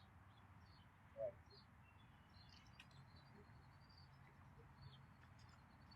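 Near silence, with faint scattered bird chirps and one brief soft sound about a second in.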